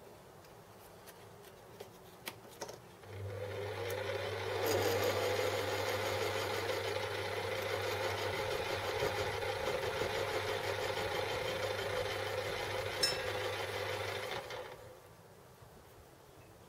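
Small metal lathe starting up and spinning an offset cast aluminium pillow block for about ten seconds, with a steady motor hum under the running noise. There is a sharp click shortly before the lathe is switched off and runs down.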